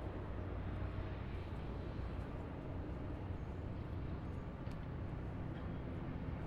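Distant highway traffic: a steady, even rumble of many vehicles blending together, with a few faint high chirps over it.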